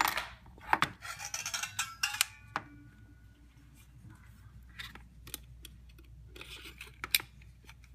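Sharp clicks and a light metallic clatter as a strip of staples is cut shorter to fit the stapler, with a brief faint ringing early on and scattered lighter clicks after.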